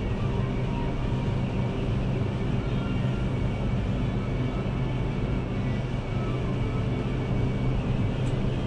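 Steady low mechanical hum inside an enclosed Ferris wheel gondola, with a few faint steady higher tones over it.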